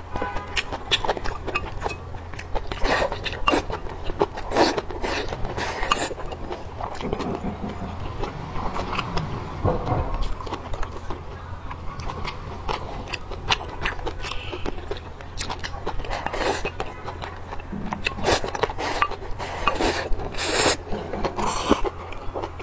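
Close-miked eating of glass noodles with braised pork and cabbage: wet chewing and mouth smacks in many irregular small clicks, with a few longer slurps.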